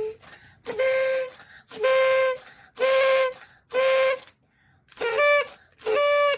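A toy whistle blown in short toots, about one a second, each a steady, breathy note lasting under a second; a couple of the notes near the end bend upward in pitch.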